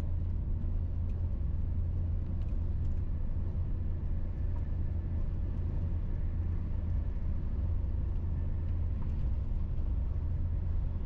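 TGV Duplex high-speed train running at its 300 km/h line speed: a steady low rumble of running noise.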